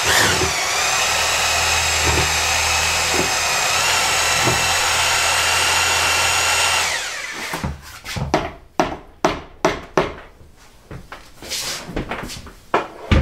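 Electric drill spinning a mixing paddle through clay slip in a plastic bucket: a steady whine that picks up slightly about four seconds in, then winds down and stops about seven seconds in. A string of sharp knocks and clatter follows.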